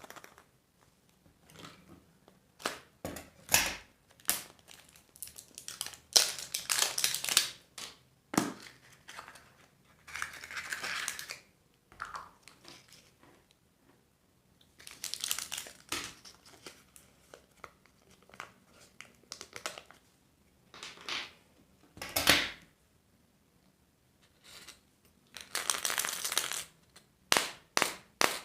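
Candy and surprise-egg wrappers crinkling and tearing as they are unwrapped by hand, in irregular bursts with sharp clicks and taps between them.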